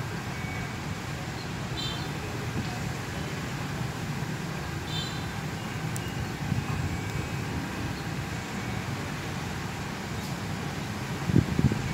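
CC 201 diesel-electric locomotive engine running with a steady low rumble as the train moves slowly. Short high chirps come twice, about 2 and 5 seconds in, and a few louder low thumps come near the end.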